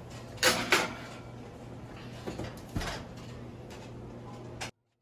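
Two sharp knocks close together about half a second in, then a few softer knocks, like things being handled or set down in a kitchen, over a steady low hum. The sound cuts off suddenly near the end.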